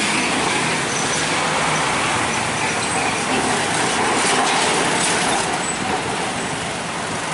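Mixed road traffic moving slowly past: a flatbed truck, cars and motorcycles running, heard as a steady wash of engine and tyre noise.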